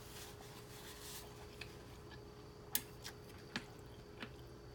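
Quiet wet eating sounds from chewing noodles: soft squishy mouth noises, with a few sharp clicks in the second half, the loudest a bit under three seconds in, over a faint steady hum.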